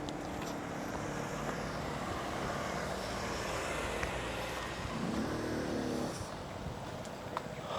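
A motor vehicle running, its engine and road noise steady, with a rise and fall in engine pitch about five seconds in.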